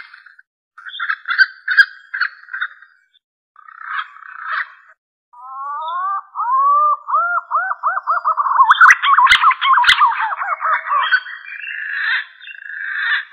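Green pigeon (punai) calls used as a hunting lure. Short warbling bursts open the passage; then from about five seconds in comes a long run of whistled notes, each rising and falling, about three a second, growing louder and busier near the middle. Two sharp clicks come around the middle of that run.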